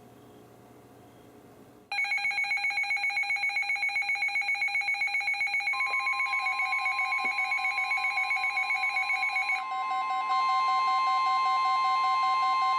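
Several NOAA weather radios sounding their alert alarms together for an incoming flood warning: rapid electronic beeping at several pitches starts abruptly about two seconds in. About four seconds later the station's steady 1050 Hz warning alarm tone joins and holds, while one radio's beeping changes near the ten-second mark.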